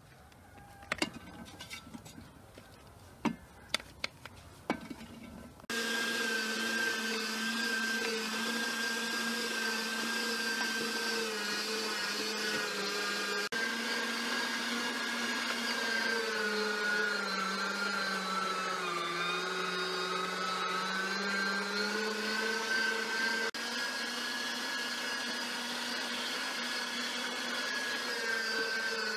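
Electric meat grinder switching on about six seconds in and running steadily as feijoa halves are pushed through it. Its hum sags in pitch for a few seconds near the middle and then recovers. Before it starts there are a few sharp knocks.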